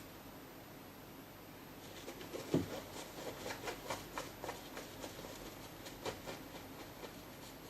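A cat moving about in a bag: a series of short rustles and scratches, with one louder thump about two and a half seconds in.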